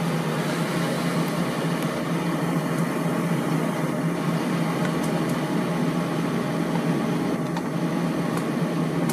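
Xiaomi Mijia electric kettle heating water: a steady hum and hiss as the element heats the water, part-way up at around 70 °C and not yet boiling.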